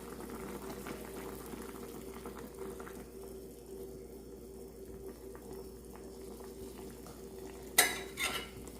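Ham, hotdog and potato simmering in a shallow pan of water, a low bubbling under a steady hum. Near the end come two sharp knocks.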